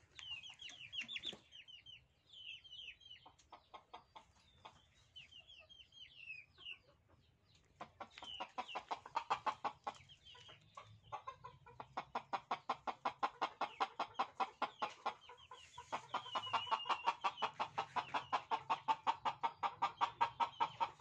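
Junglefowl rooster clucking in a fast, even run of short clucks, about five a second, from about eight seconds in to the end. Before that, faint thin high chirping.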